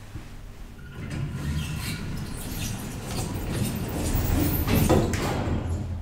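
1980s KONE hydraulic elevator running and its automatic sliding doors working: a low mechanical rumble with a hiss that starts about a second in, builds, and drops off just before the end.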